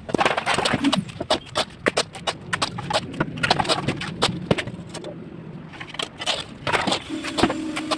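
A rapid, irregular run of clicks, knocks and scrapes from hand work at a construction site. A steady machine hum cuts back in near the end.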